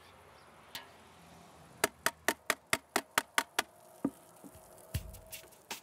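Thermostat dial of an electric preserving cooker clicking through its notches as it is turned up to heat apple juice to 80 degrees: a quick, even run of about nine clicks. A knock and a dull thump follow near the end.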